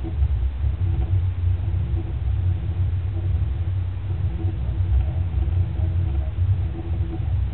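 Small 48-step stepper motor buzzing low as it steps round, its speed set by the tilt of an accelerometer read by an Arduino; the sound wavers in level.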